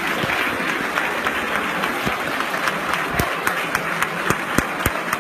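Audience applauding: dense clapping that thins out about halfway through into a scatter of separate, sharp claps as it dies down.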